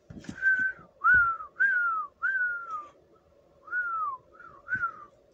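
A person whistling a string of about seven short notes, most sliding down in pitch, over a faint steady hum.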